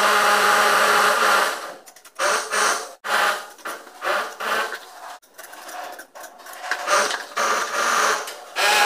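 A hand tool scraping and rubbing on wet cement in irregular strokes, one long stroke at the start, then shorter ones with pauses.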